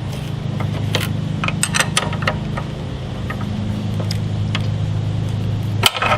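Scattered metal clicks and clinks from fitting a table saw blade and its arbor nut by hand, with a sharp knock near the end, over a steady low hum.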